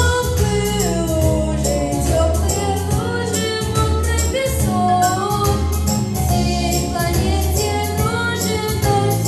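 A boy's voice singing a song through a handheld microphone, over a backing track with a steady beat and sustained bass.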